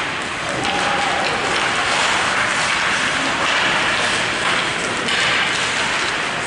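Crowd of rink spectators cheering and clapping, a steady loud wash of noise with a faint shout about a second in.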